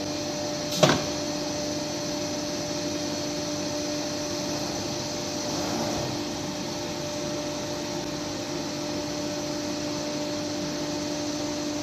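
CNC router running steadily, a constant whine over a hiss, which fits the spindle motor and dust extraction. A single sharp knock comes about a second in.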